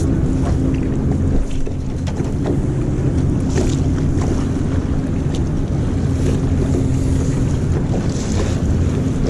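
Steady low rumble of wind on the microphone and moving water, with a steady low hum underneath and a few faint ticks.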